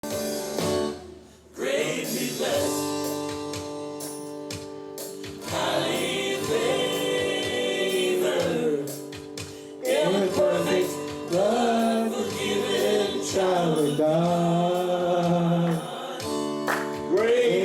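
Two men singing a gospel song over instrumental accompaniment of held chords, in several long sung phrases.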